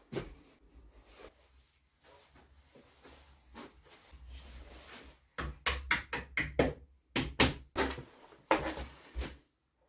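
Irregular knocks and clatters of wooden parts and tools being handled and set down on a workbench, sparse and light at first, then a quick run of sharper knocks over the last few seconds.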